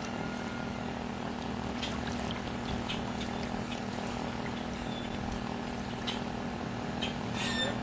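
A steady low hum under the splash and slosh of legs wading through shallow pond water, with a few light splashes near the end.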